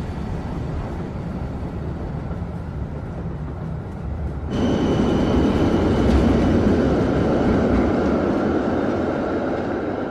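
Passenger train running on its rails, a steady rumble that jumps louder about four and a half seconds in, with a faint high whine above it.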